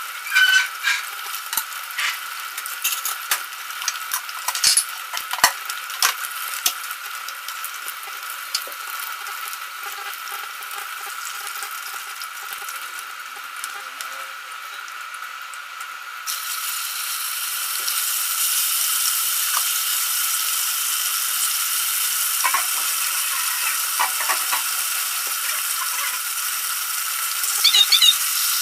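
Pork deep-frying in hot oil, a steady sizzle with scattered clicks and scrapes of a utensil stirring it. A little past halfway the sizzle turns suddenly louder and brighter.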